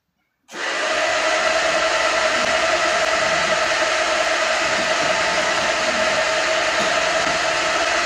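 Electric motor of a pig-feed delivery cart running steadily as it conveys feed out through its discharge sleeve into a trough; the hum comes in abruptly about half a second in and holds unchanged.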